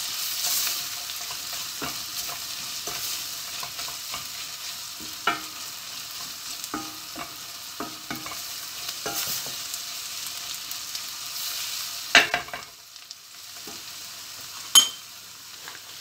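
Onions, peppers and tomato and pepper paste sizzling in oil in a stainless steel pan while a wooden spoon stirs and scrapes through them, with scattered light knocks of the spoon on the pan. Two sharper knocks come near the end.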